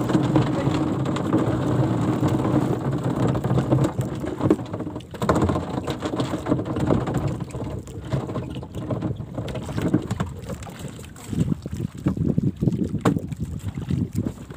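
Wind buffeting the microphone and water slapping against the hull of a small bamboo-outrigger canoe at sea. A steady low hum is heard for the first few seconds.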